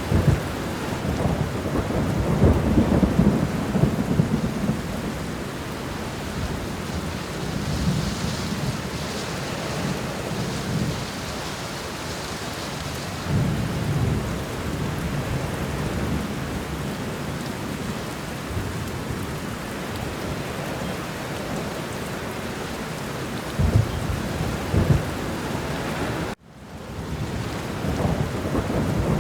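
Steady rain with low rolling thunder rumbling several times. Near the end the sound cuts out abruptly for a moment and fades back in.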